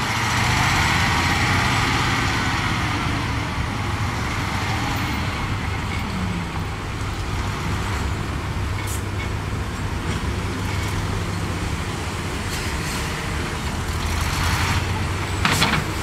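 Ten-wheel dump truck's diesel engine running steadily while its hydraulic hoist raises the tipper bed to unload dirt, a little louder in the first couple of seconds. A few sharp clicks near the end.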